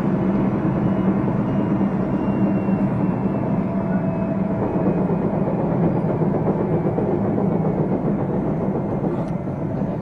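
Running noise heard inside a JR Central 373 series electric train, the F2 set with its abnormal noise, travelling at steady speed. A continuous rumble of wheels on rail mixes with the hum of the Toshiba VVVF traction equipment, and a faint high tone sits above them.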